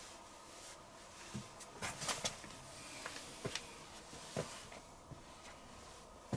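Dyson Contrarotator CR01 washing machine in a pause of its synthetics wash: faint, irregular clicks and soft taps, about a dozen scattered through, over a low background hiss.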